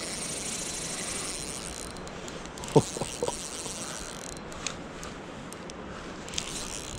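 Steady rush of creek water with a high buzzing note over it, heard while a freshly hooked steelhead is being played; a short knock comes near the middle, then a few light clicks.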